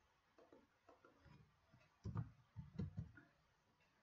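Near silence broken by a few faint, short clicks about two to three seconds in: keystrokes on a computer keyboard.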